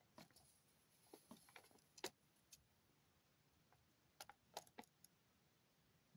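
Faint crackling and ticking of a paper till receipt being handled and held up. The sounds come in two short clusters: one over the first two seconds or so, and another about four seconds in.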